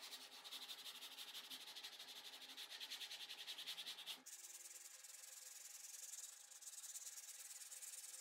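Faint hand block-sanding of primer surfacer on a steel car fender with 80-grit sandpaper: quick, regular scratching strokes, changing in character about halfway through.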